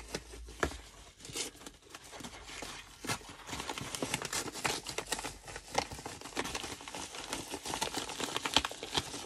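Yellow plastic mailing bag being pulled open and handled, with an irregular crinkling and crackling of thin plastic that grows busier after the first few seconds.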